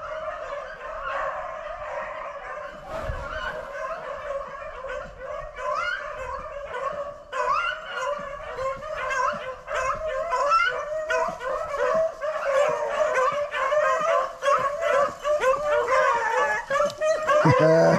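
A pack of beagles baying on a rabbit's trail, many voices overlapping, growing louder toward the end.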